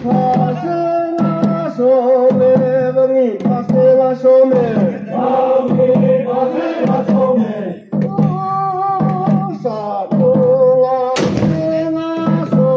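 Chant-like singing of a tribal war dance, repeating phrases of held, wavering notes. A single sharp hit cuts through about eleven seconds in.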